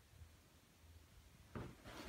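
Near silence: room tone, with a soft thump near the end.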